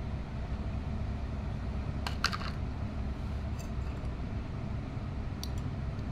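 Steady low background hum with a quick cluster of light clinks about two seconds in and two fainter ticks later: a metal mesh strainer knocking on the rim of a glass bowl while blended aloe vera gel is strained through it.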